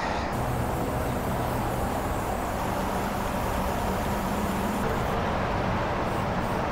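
Aerosol spray can of red rust-preventative primer hissing steadily as it is sprayed along sheet metal, the hiss easing off about five seconds in. A steady low hum runs underneath.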